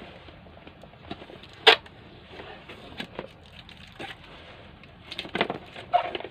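Cardboard box and clear plastic case of an action camera being turned over and worked in the hands: scattered clicks, knocks and light rustling, the sharpest a single click about a second and a half in, with a cluster of knocks near the end.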